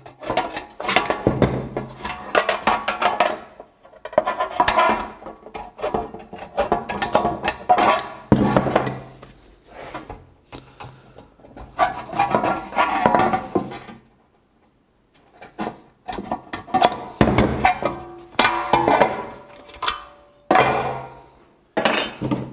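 Hand tin snips cutting through a painted sheet-metal flashing profile: bursts of crunching, clicking snips a few seconds long, separated by short pauses, with a brief quiet gap about two-thirds of the way through. These are the final cuts that part the profile in two.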